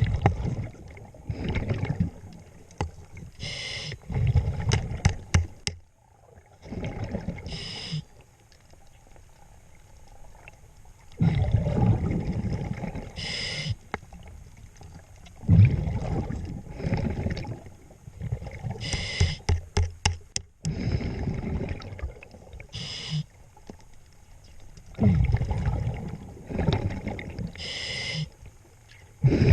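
A scuba diver's regulator breathing cycle, heard underwater: short hissing inhalations through the regulator alternating with longer bubbling, rumbling exhalations every few seconds, with a few sharp clicks in between.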